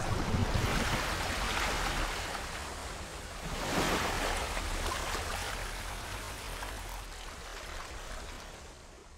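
Rushing, splashing water sound effect: one surge near the start and another about four seconds in, then slowly fading away.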